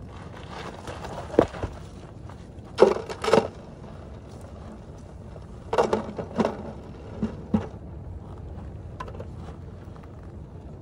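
Stones and shell grit on a rocky shore knocking and crunching as a flat rock is lifted and turned over, in several short clusters of sharp knocks.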